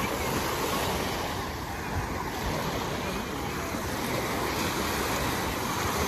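Small sea waves breaking and washing up a sandy shore in a steady rush of surf.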